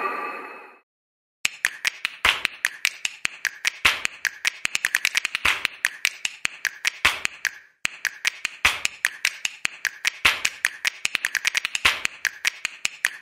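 A long run of sharp clicks or taps, several a second and unevenly spaced, with a brief pause about halfway through. A louder earlier sound fades out in the first second, just before the clicking starts.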